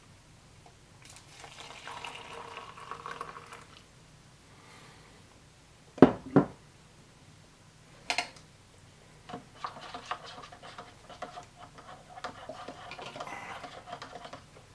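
Water poured from a glass measuring cup into a paper cup of instant coffee for a couple of seconds, then two loud sharp knocks close together about six seconds in and another near eight. After that come light clicking and rustling as the coffee and ration packets are handled.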